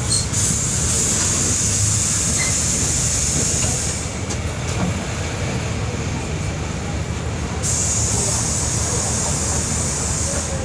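Volkswagen 17.230 EOD bus's diesel engine running, heard from inside the bus as a steady low rumble. A high hiss over it fades out about four seconds in and comes back for the last three seconds.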